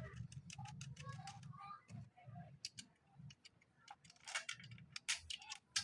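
Irregular sharp clicks and clinks of chainsaw parts being handled during assembly, with a faint low hum behind.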